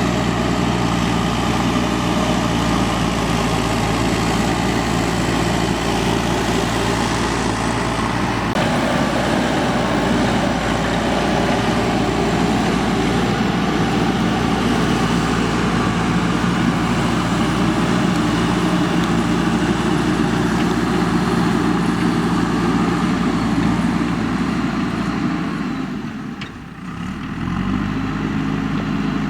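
Diesel engine of a JCB 3DX backhoe loader running steadily under work, its note shifting about a third of the way in. Near the end the sound dips briefly and the engine comes back at a steadier, higher note.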